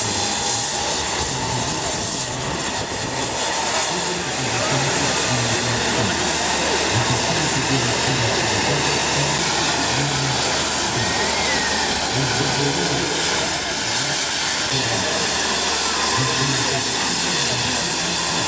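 Steady hiss of escaping steam from GWR 4575-class 'Small Prairie' tank locomotive 5521, standing in steam.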